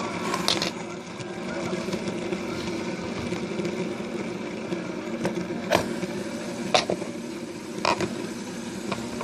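Fidget spinners whirring steadily, with four sharp clicks over the whir, one near the start and three later on.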